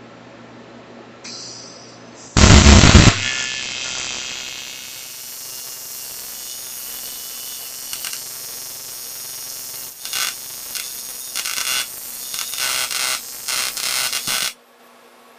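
AC TIG welding arc on an aluminium air-conditioning tube: a short, very loud burst as the arc strikes, then a steady hissing buzz. In the last few seconds it goes uneven, surging louder and softer, before it cuts off suddenly.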